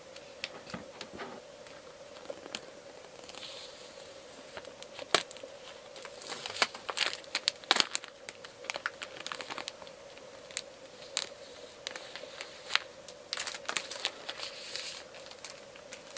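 Scissors snipping into clear plastic shrink-wrap, then the film crinkling and tearing in bursts as it is peeled off a cardboard phone box.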